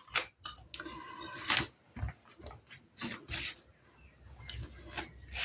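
Handling of paper cards and a clear acrylic stamp block on a craft mat: scattered light taps, clicks and paper rustles, with a brief high squeak-like tone about a second in.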